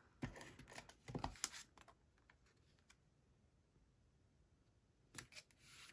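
Faint clicks and light taps from a tape runner laying adhesive and from cardstock being handled during the first second and a half, then near silence, with a few more soft taps near the end.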